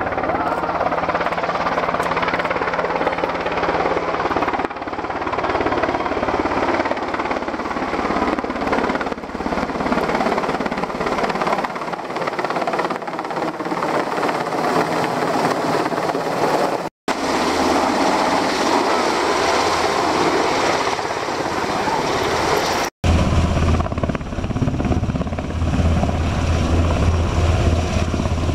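NH90 military helicopter hovering low overhead, its twin turboshaft engines and rotor running loud and steady. The sound cuts out briefly twice. After the second cut, about two-thirds of the way through, the deep, pulsing beat of the rotor grows much stronger.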